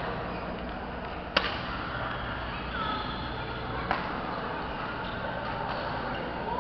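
Two sharp hits of a badminton racket on a shuttlecock, about two and a half seconds apart, the first the louder, over the steady background din of a busy badminton hall. A brief squeak comes a little before the second hit.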